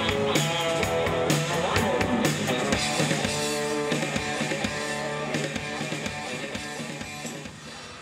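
Amplified rock band playing live: drum kit with electric guitars. The music fades out gradually over the last few seconds.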